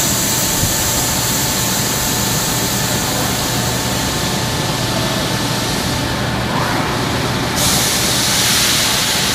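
Machinery running steadily: a constant low hum with a hiss over it. A louder rush of hiss comes in about three-quarters of the way through and lasts a couple of seconds.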